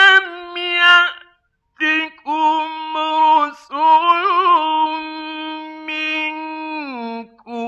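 A male Quran reciter chanting in melodic mujawwad style: long held notes with a wavering ornament, in three phrases separated by short breaths. The pitch steps down near the end.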